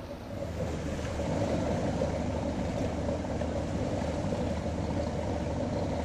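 Motorboat engine running steadily while the boat creeps forward, getting louder about a second in.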